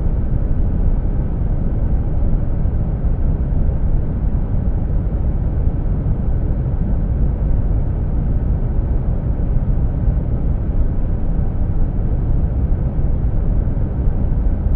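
Deep brown noise blended with the steady hum of a car's air conditioning: an even, unchanging rumble, heaviest in the low end, with no distinct tones or rhythm.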